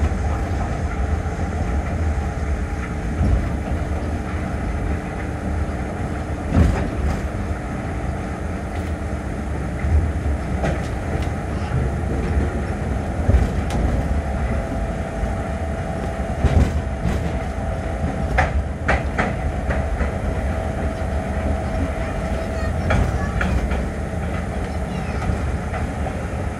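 Running noise inside a rubber-tyred Osaka Metro New Tram 200-series automated guideway train: a steady low rumble, with a few sharp knocks and a faint steady whine that comes and goes.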